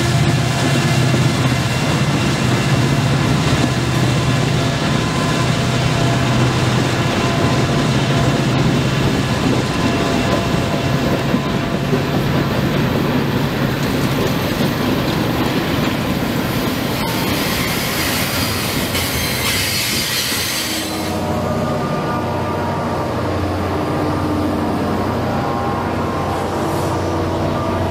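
Diesel freight train sounds: locomotive engines drone steadily while the freight cars roll by with rail clatter and wheel squeal. About 21 seconds in the sound switches abruptly to another train with a lower, steady engine hum.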